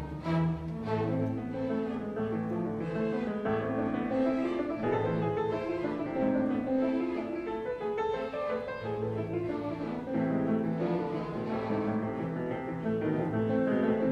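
Instrumental background music of piano and bowed strings, with held low string notes.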